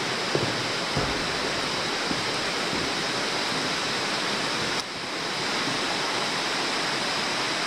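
A steady, even rushing hiss throughout, with a couple of soft thumps of footsteps on the walkway in the first second; the hiss dips briefly about five seconds in and swells back.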